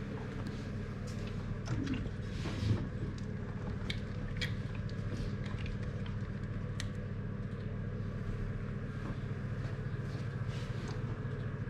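Steady low electrical hum, with scattered light clicks and knocks from hands handling the plastic bottles on a home-built colour-dispensing rig; the loudest knock comes about three seconds in.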